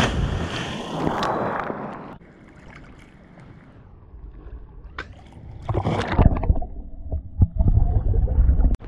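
A person plunging into a lake from a cliff: a sharp splash, then about two seconds of spray and churning water. Near the end the microphone goes under water, giving a loud muffled rushing and bubbling.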